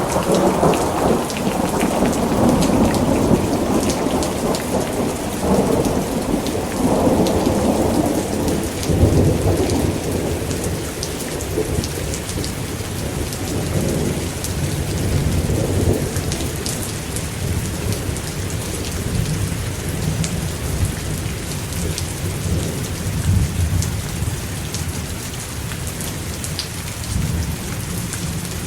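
Thunderstorm: steady heavy rain hissing and pattering, with a long roll of thunder that is loudest in the first eight seconds or so, then rumbles on lower and fades away.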